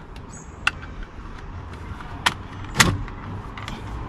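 Plastic clicks and snaps as a VW Golf Mk5 steering column module is pushed up onto the column and clips into place: three sharp clicks, the last and loudest with a dull knock, near three seconds in.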